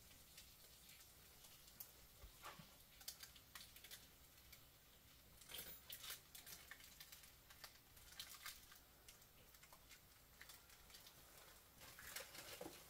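Faint, scattered small clicks and rustles as small objects are picked up and handled and a plastic bag is rustled.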